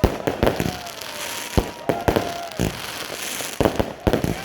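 Fireworks going off: about a dozen sharp bangs at an irregular pace over a steady crackling hiss.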